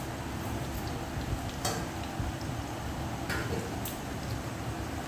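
Corn pakoras sizzling steadily as they deep-fry in hot oil in a kadhai, with a few short sharp clicks.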